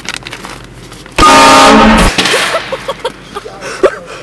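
Train horn sounded in one very loud blast about a second long, clipping at full level.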